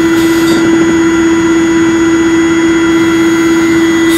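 Steady, loud cockpit drone with one constant hum running through it, and a brief high hiss just after the start.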